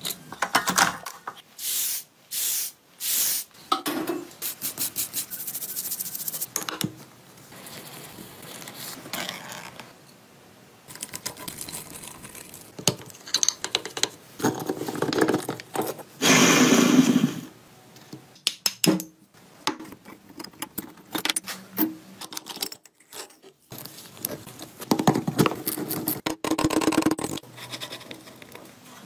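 Metal tools and parts clinking, knocking and scraping as a motorcycle's gearbox and final-drive housings are taken apart by hand: many separate short sounds, with a louder noise lasting about a second midway.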